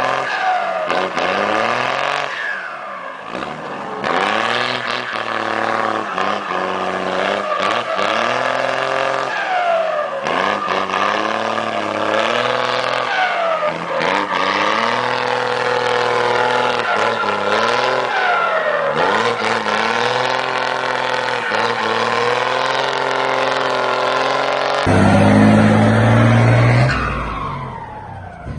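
Diesel engine of a Mercedes-Benz truck with a comb fitted in the turbo intake, accelerating through the gears. The engine note climbs and breaks off every couple of seconds, and a turbo whine drops after each shift. Near the end a louder, deeper engine sound briefly takes over, then fades.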